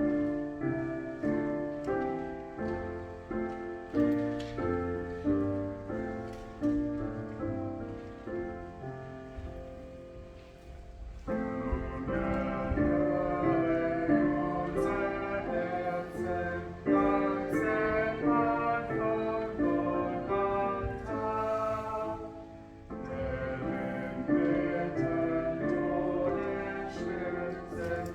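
Piano playing a slow, calm piece, each note dying away after it is struck; it grows fuller and louder about eleven seconds in.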